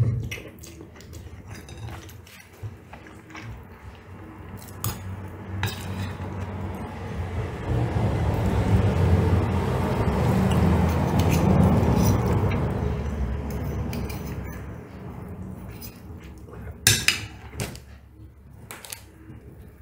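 A fork and spoon clink and scrape against a ceramic plate while spaghetti is twirled and eaten. A low rumble swells up and dies away over about ten seconds in the middle and is the loudest sound there.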